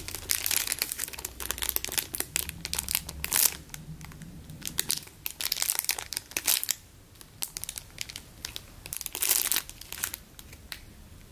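Clear plastic packaging bag crinkling in irregular crackly bursts as the foam pizza-slice squishy inside it is squeezed and handled, with a quieter lull a little past the middle and again near the end.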